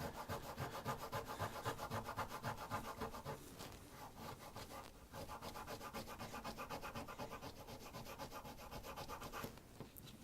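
Rapid back-and-forth scrubbing of crosscut saw handle hardware with an abrasive, taking off surface rust and old wood. The strokes come at a quick even rhythm, break off briefly about halfway, then carry on and stop near the end.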